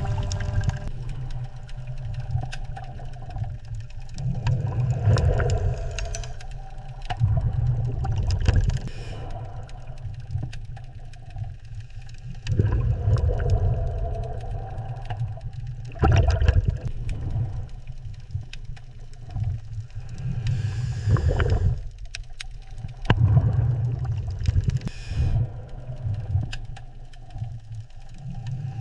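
Low rumbling, surging water-like noise that swells and fades every three to four seconds, with wavering mid-pitched tones over it.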